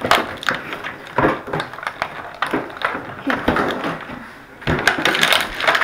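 Cardboard toy box being handled and torn open: scattered knocks, scrapes and rustles of cardboard.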